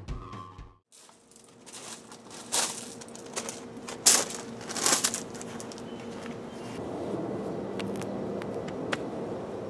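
Drumming music cuts off about a second in, followed by a few scattered crunching and rustling noises, the sharpest about four seconds in. A faint steady hum comes in after about seven seconds.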